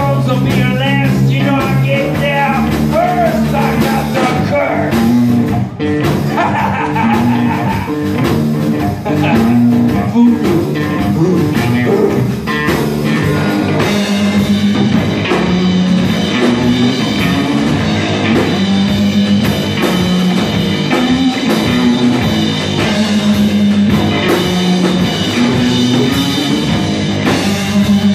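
Live rock band playing: electric guitar, electric bass and drum kit, with a sung vocal line over the first few seconds, then instrumental guitar-led playing.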